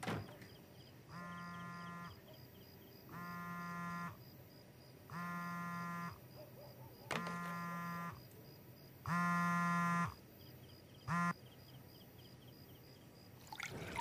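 iPhone buzzing on vibrate with an incoming call: five buzzes of about a second each, two seconds apart and getting louder, then a sixth short buzz that stops abruptly.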